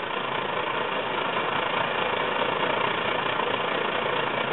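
Brass Svea 123R white-gas backpacking stove burning at full flame, its burner giving a steady rushing noise that grows slightly louder in the first second.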